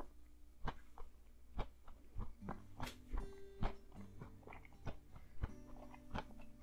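Quiet fingerpicked acoustic guitar music: sparse single plucks, a few letting notes ring on.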